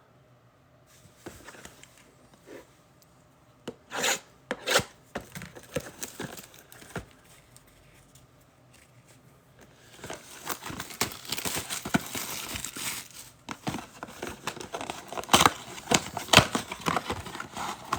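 Plastic wrap and foil trading-card packs being torn open and crinkled by hand. A few sharp snaps come about four seconds in, then dense crinkling and tearing through the second half.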